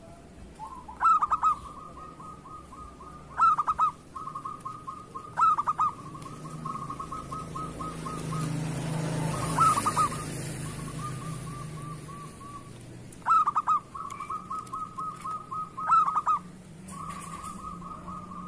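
Zebra dove (perkutut) singing: six loud clipped coos, each running on into a long, fast string of softer notes at one pitch. A rush of noise swells in the middle.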